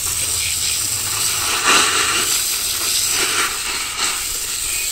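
Garden hose spraying water onto the case of a Turbo 400 transmission: a steady hissing spray with splashing that swells a couple of times as the stream moves over the metal, rinsing grime off the case.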